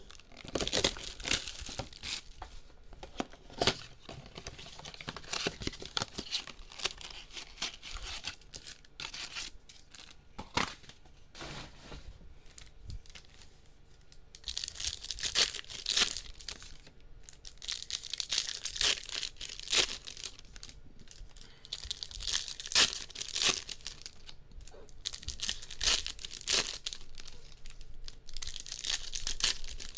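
Plastic wrapping and foil card packs from a Topps Chrome blaster box being torn open and crinkled by hand, in repeated bursts of tearing and rustling with a few sharp clicks.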